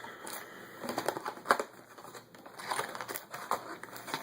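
Yu-Gi-Oh booster box packaging being opened by hand: irregular crinkling and crackling with sharp clicks.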